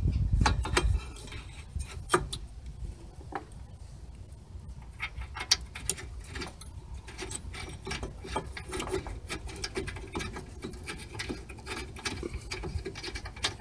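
Socket ratchet clicking in quick runs of ticks as a bolt on the front brake caliper bracket is wound in by hand, with a few knocks of metal parts in the first second or two.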